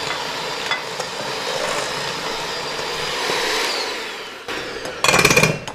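Small electric kitchen mixer running steadily with a faint whine, winding down about four seconds in; a short loud burst of sound follows near the end.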